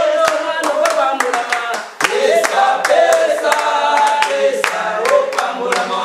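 Church congregation singing a song together in chorus, with steady rhythmic hand clapping. The singing and clapping pause briefly just before two seconds in, then resume.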